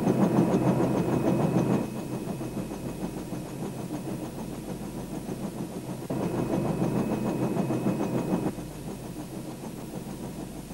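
A vehicle engine running steadily. It is louder for about the first two seconds and again from about six to eight and a half seconds in, with sudden jumps in level.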